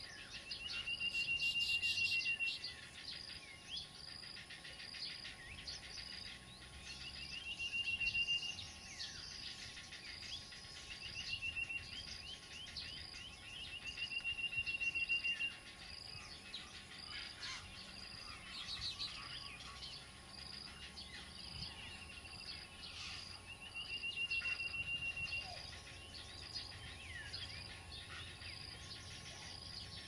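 Baya weavers calling: quick down-slurred chirps and chattering, with a steady buzzy note held for about a second and repeated every few seconds. Behind them runs a high, even insect pulse, about three beats every two seconds.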